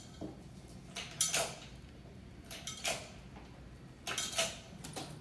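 Scattered light metallic clinks and knocks, about half a dozen, from the hoist chains and lifting brackets as an engine hoist takes up the weight of a Jaguar XK six-cylinder engine's cylinder head to lift it off the block.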